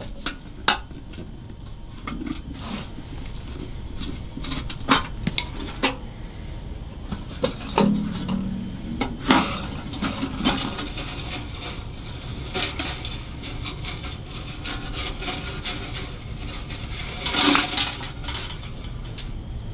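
Scattered metallic clicks, taps and scraping from handling a rusty steel-body Dobro resonator guitar and working a screwdriver on its hardware as the guitar is taken apart.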